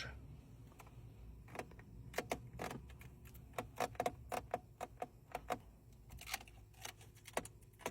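A Porsche's interior trim squeaking: irregular short clicks and creaks, a dozen or more, some with a brief squeal to them.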